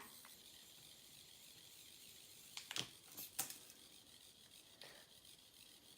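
Near silence with a faint steady hiss and a few faint clicks near the middle and once more later on.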